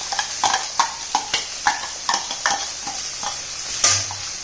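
Chopped onion sizzling in hot oil in a kadhai, with a quick run of utensil scrapes and taps against the pan, about three a second, and a louder clank near the end.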